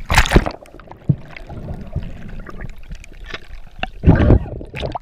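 Ocean water splashing and gurgling against a GoPro camera held at the water's surface, with a loud splash right at the start and another burst about four seconds in.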